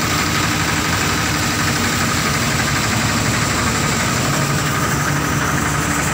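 Steeltrac threshing machine running steadily with a loud, continuous mechanical noise that does not change pitch or level.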